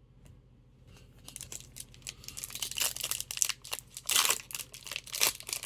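A hockey card pack's wrapper being torn open and crinkled. It starts about a second in, with louder tearing about four seconds in and again near the end.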